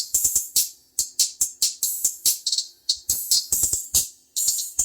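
Music played through a DS18 TWPZ piezo super tweeter on its own: only the treble comes through, a quick beat of sizzling cymbal and hi-hat hits with almost no bass or midrange.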